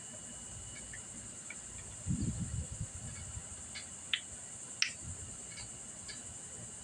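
Small clicks and taps of needle-nose pliers and a steel circlip being worked into the wrist-pin groove of a scooter piston, with a brief low handling rumble about two seconds in, over a steady high hiss.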